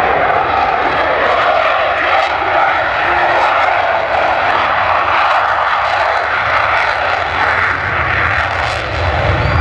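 F-22 Raptor's twin turbofan engines roaring steadily and loud as the jet flies its demonstration.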